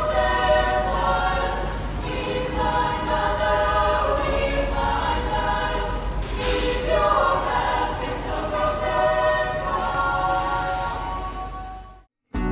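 Background music of a choir singing long held notes in several voices over a low drone, fading and stopping abruptly near the end.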